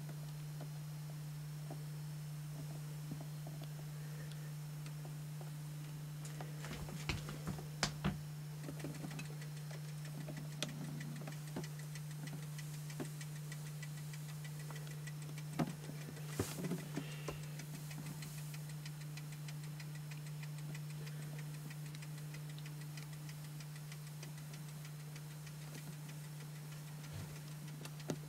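A steady low electrical-sounding hum with faint ticking, broken by a few sharp knocks and clicks about a quarter of the way in and again a little past halfway, like a handheld camera being bumped and handled.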